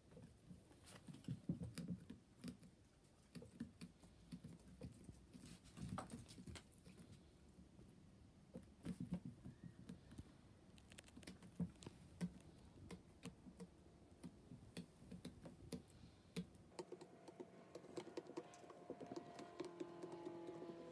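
Faint, irregular light clicks and taps of wooden skewer points pricking through banana peel and knocking on a tabletop. Near the end, faint music with held notes comes in.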